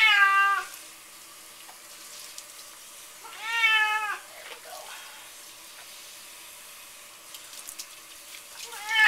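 Domestic cat meowing loudly while being bathed under a running kitchen faucet: three meows, each under a second long, each rising then falling in pitch, one at the start, one about three and a half seconds in, and one at the very end. The tap water runs steadily underneath.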